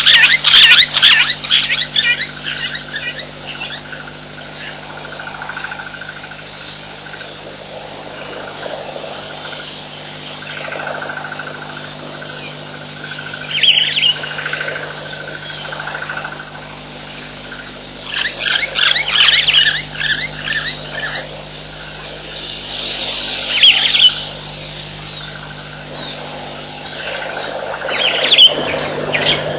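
Wild birds chirping and calling continuously, with louder flurries of calls every few seconds, over a steady low hum.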